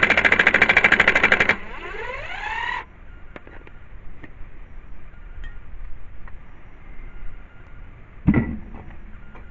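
Power impact wrench hammering rapidly on a wheel's lug nut. About a second and a half in the hammering stops and the wrench's motor runs free, its pitch rising as the nut comes loose. Then a few faint clicks and a sharp thump near the end.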